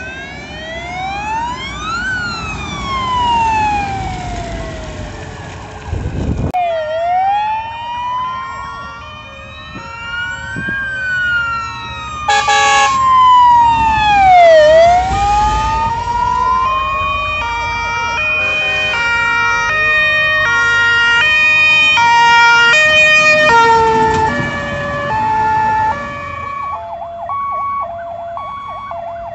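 Fire engine sirens passing. First a wailing siren rises and falls about every two seconds. From midway, horns step between several fixed pitches in a repeating sequence, with a short loud blast just before, and the sound is loudest as a truck comes close.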